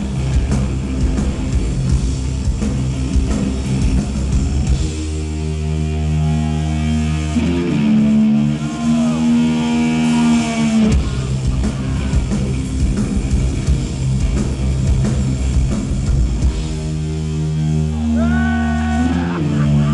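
Live stoner-rock band playing loud: electric guitars through Marshall stacks, bass and drum kit. Pounding drum-driven passages alternate with long held low chords, about five seconds in and again near the end.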